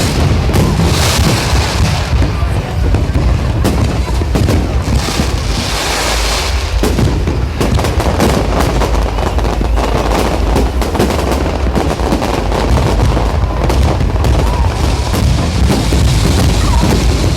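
Fireworks salute going off: a dense, unbroken run of booms and crackling bangs over a heavy low rumble.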